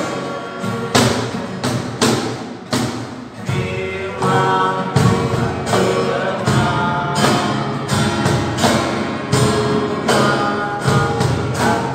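Two acoustic guitars strumming chords in a steady rhythm, with young voices singing along.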